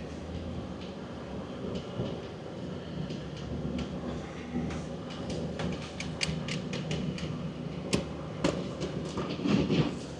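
Off-road 4x4's engine running steadily at low revs. From about halfway in there is a string of sharp clicks and knocks, the loudest about eight seconds in.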